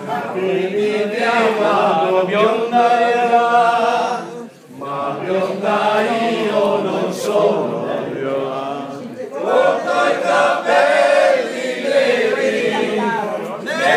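A group of people singing together unaccompanied, loud and in chorus, in sung phrases with a short break about four and a half seconds in.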